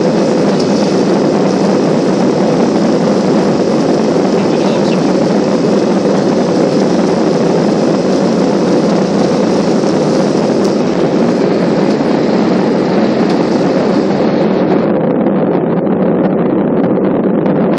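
Airbus A320 jet engines at takeoff thrust during the takeoff roll, heard from inside the cabin: a loud, steady roar. Its high hiss thins out near the end.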